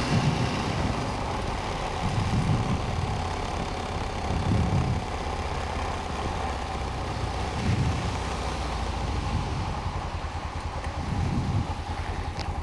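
Honda Rincon 650 quad's single-cylinder engine running steadily while riding, with a few low swells in its sound as the load and throttle change.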